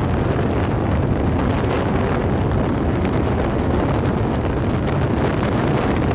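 A car on the move: a steady rush of wind and road noise over a low engine drone.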